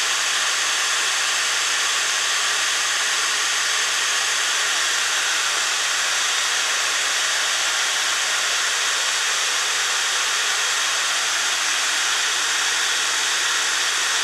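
Steady fan-like whooshing with a faint low hum underneath, from the running Peltier cooling setup.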